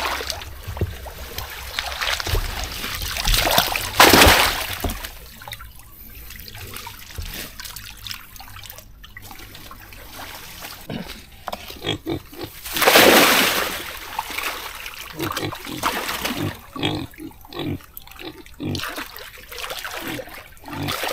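Water splashing and sloshing in shallow muddy water, with irregular small splashes and two louder surges of splashing, about four seconds in and again around thirteen seconds.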